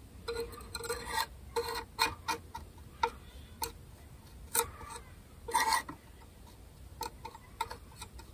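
Thin metal blade scraping and tapping on a mandolin's wooden top, working sawdust and glue down into a crack. It comes as a string of short, irregular scrapes and clicks, with longer scrapes about a second in and again near six seconds.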